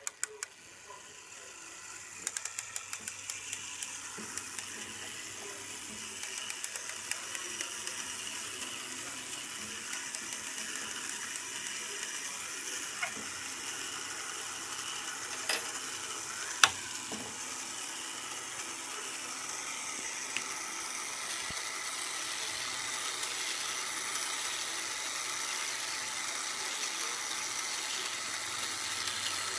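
Key-wound brass clock movement: the mainspring ratchet clicks as it is wound, then the gear train runs with a steady whirr that builds over several seconds. Two sharp clicks come about halfway through, the second the loudest.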